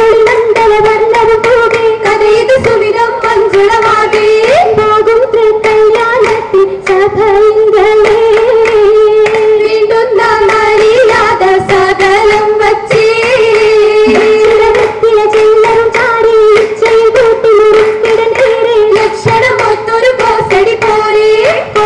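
Oppana song: female voices singing a Mappila song in unison, with rhythmic hand claps from the dancers.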